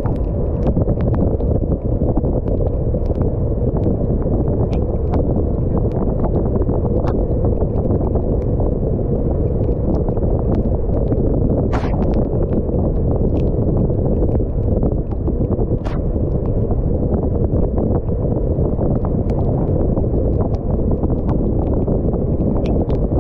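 Wind buffeting the microphone and mountain-bike tyres running on wet asphalt at about 30 km/h, a steady loud rushing noise with many small sharp clicks and ticks scattered through it.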